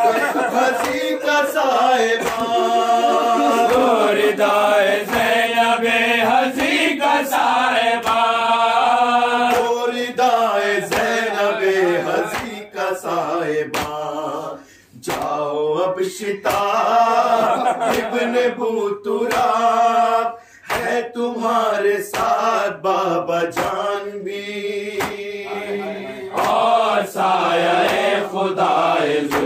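Men chanting an Urdu nouha (Shia lament) together in unison, with a steady beat of open hands striking their chests (matam). The chanting breaks off briefly twice, about halfway through and a few seconds later.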